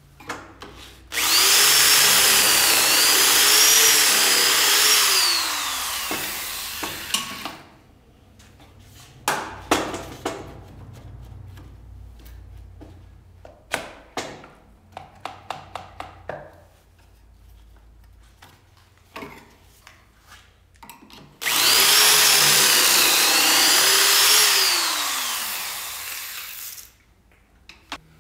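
Corded drill boring pocket holes with a stepped bit through a Kreg pocket-hole jig into plywood, in two runs of about six seconds each; the motor's pitch wavers as the bit bites and winds down at the end of each run. Clicks and knocks of the drill and workpiece being handled between the two runs.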